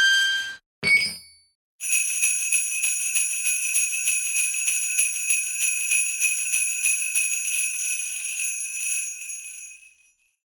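Two short ringing tones, then sleigh bells shaken in a steady rapid jingle for about eight seconds, fading out near the end.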